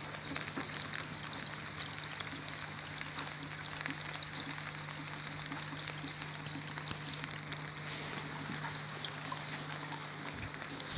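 Rain falling on a small patio pond, with many small drop ticks on the water surface, mixed with a thin stream of water trickling from a terracotta dish spout into the pond.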